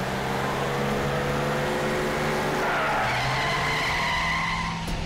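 A car engine running as the car drives in fast, with tyres squealing from about halfway through before it stops.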